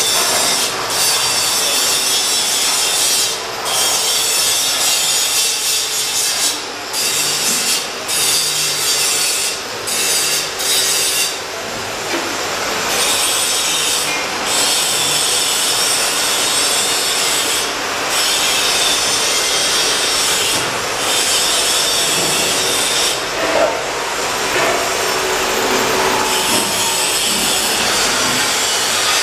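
Angle grinder grinding steel, a loud, steady, harsh hiss broken now and then by short pauses.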